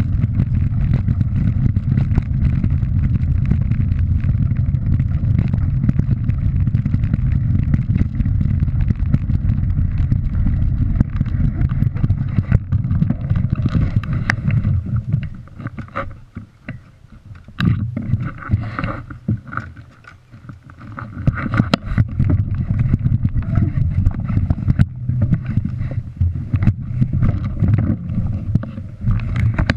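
Wind rumble on an action camera's microphone and tyre noise as a mountain bike rolls along a gravel track, with scattered rattles from the stones. About fifteen seconds in the rumble drops away for several seconds while the bike is stopped at a wooden gate, with a few knocks and clatters from handling it, then the riding noise picks up again.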